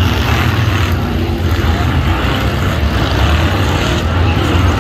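Several Ultra4 off-road race cars' engines running together as they climb a rock section, a steady low rumble under a wash of engine and tyre noise.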